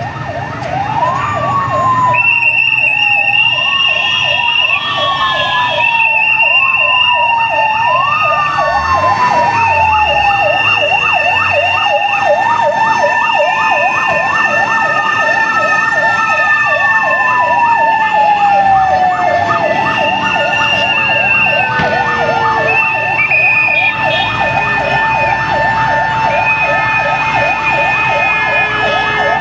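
Several emergency vehicle sirens from fire engines and an ambulance sound at once and overlap. A fast warbling siren runs throughout. Over it, a slower wail rises and falls about once every second and a half at first, then sweeps down in one long fall midway, while a steady high tone keeps cutting in and out.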